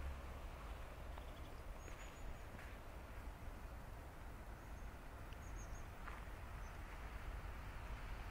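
Faint outdoor ambience: a steady low rumble, with a few short, high chirps of small birds scattered through it.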